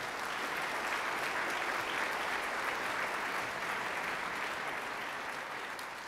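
Audience applauding steadily, a dense patter of many hands clapping.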